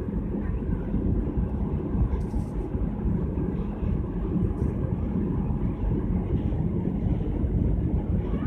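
Wind buffeting the microphone in a steady low rumble, on the open top deck of a cruise ship under way.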